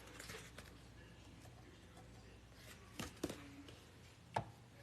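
Quiet room with a few light knocks or taps: two about three seconds in and a sharper one near the end.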